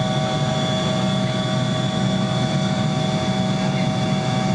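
Boeing 727 cabin noise in flight: the steady sound of its three rear-mounted Pratt & Whitney JT8D turbofans and the airflow, heard inside the cabin, with a few steady whining tones over the low rumble.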